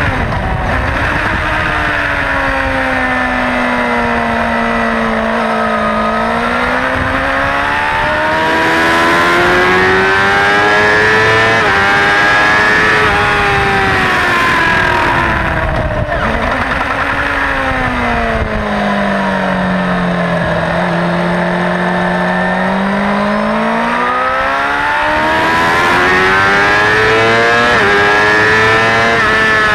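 Suzuki GSX-R600 K4 motorcycle's inline four-cylinder engine, heard from onboard at racing pace. Twice the revs drop away under braking and downshifts into slower corners, then climb back through a series of upshifts, the second slowdown being the deeper.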